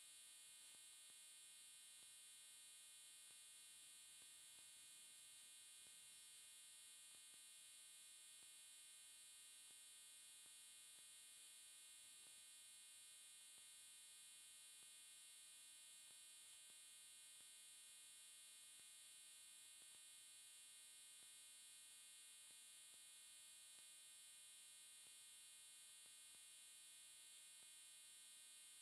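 Near silence: only a faint, steady electronic hum and hiss, with no sound from the water or sand.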